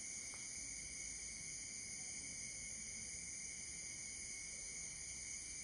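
Faint, steady, high-pitched insect chorus, like crickets shrilling in a wooded garden.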